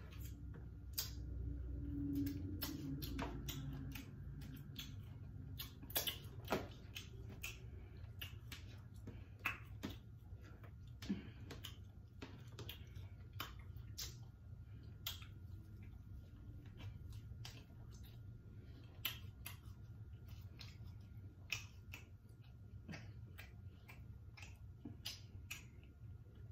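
Close-up eating sounds: irregular wet clicks of lip smacking, chewing and finger licking while eating turkey leg by hand, over a low steady hum. There is a short closed-mouth 'mm' hum about two seconds in.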